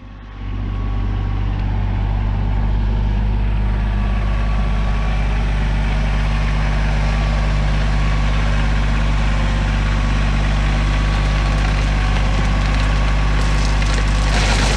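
Tractor engine running steadily up close, building over the first couple of seconds and then holding an even note.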